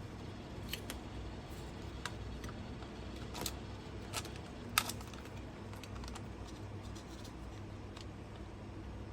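Sparse clicks and light taps from the parts of a cordless vacuum cleaner being handled while it is taken apart for service, the sharpest click just under five seconds in, over a low steady hum.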